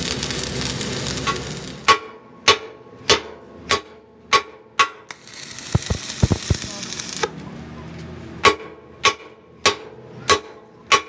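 Electric arc welding on a steel truck axle housing: a crackling, sizzling hiss from the arc for about two seconds, then again for about two seconds in the middle. Between and after the welding runs come sharp metal knocks with a short ring, about one every 0.6 s, five or six in each series.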